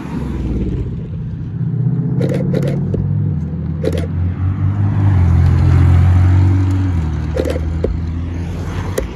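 Performance car engines driving past at low speed, a deep steady engine note that steps up a couple of times and is loudest around six seconds in before easing off.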